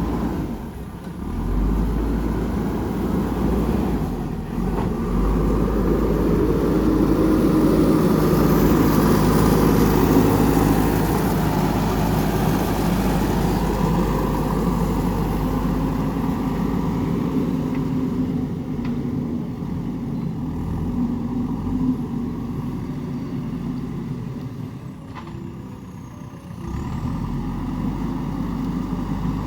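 JCB 3DX backhoe loader's diesel engine running while it works. It grows louder for a few seconds as it works harder, then eases off, with a brief drop near the end.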